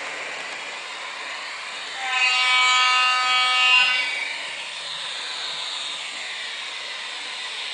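ZIMO sound decoder in a TT-scale T478 diesel locomotive model playing its diesel engine running sound through the model's small speaker as it circles the track. About two seconds in, a loud horn sounds for about two seconds and then stops.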